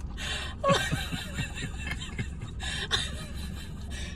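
Quiet, breathy chuckling and snickering in several short bursts, over a steady low rumble.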